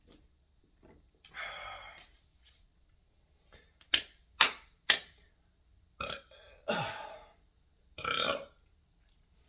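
A man burping several short times, brought on by drinking Mountain Dew soda. About four seconds in come three sharp, loud clicks half a second apart.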